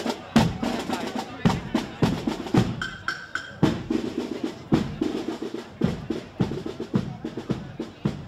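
Marching drumfanfare band's drum section beating a steady march cadence on bass drum and snare, about two beats a second. A short high note sounds about three seconds in.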